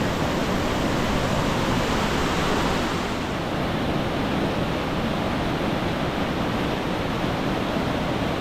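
A large waterfall running, heard close up as a loud, steady rush of falling water.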